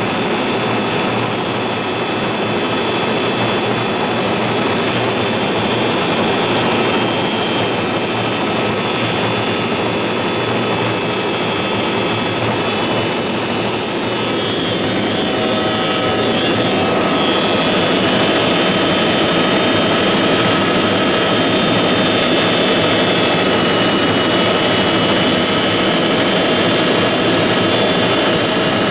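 Helicopter in flight heard from inside the cabin: steady engine whine over dense rotor and engine noise, a little louder from about halfway through.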